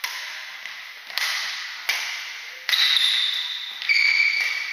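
Badminton rackets hitting the shuttlecock in a fast rally, about five sharp smacks a second or so apart, each ringing out in the hall's echo. Two drawn-out high squeaks, of shoe soles on the wooden court floor, come in the second half.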